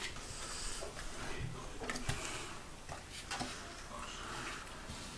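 Young puppies shifting about on a wooden floor: scattered light clicks of claws and soft scuffles, a few at a time.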